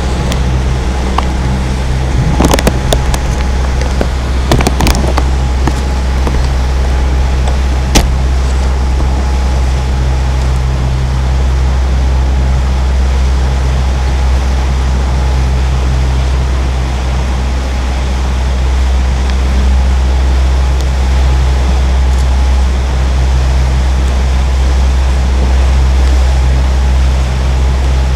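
Small boat's engine running steadily underway, a loud low drone. A few sharp knocks sound in the first eight seconds.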